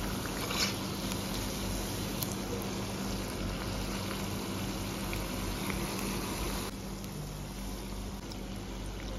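Urad dal vada deep-frying in hot oil in a cast iron kadai: a steady sizzling and bubbling, with a few faint clicks. It drops slightly in level about two-thirds of the way through.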